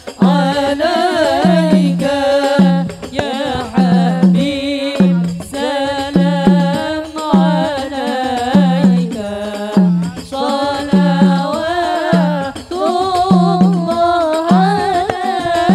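Women singing an Islamic devotional song (sholawat) into microphones, the sung melody carried over a steady low drum beat.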